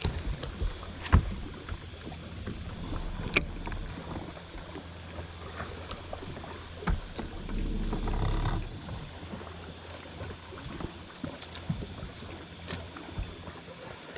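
Small boat on the water with scattered sharp knocks and handling noises, over a steady low hum, and a short rush of noise about eight seconds in.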